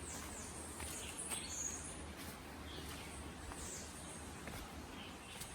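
Rainforest ambience: scattered short, high chirps and calls of birds over a faint steady background hiss.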